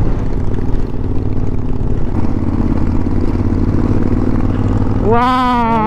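Suzuki V-Strom motorcycle engine running steadily under way on a climb, with wind rushing over the bike-mounted camera's microphone. A drawn-out exclamation in a person's voice starts near the end.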